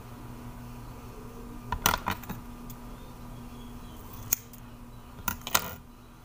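Scissors snipping through curly hair: several short, sharp snips in small groups, a few about two seconds in, one past the middle and two more near the end, over a steady low hum.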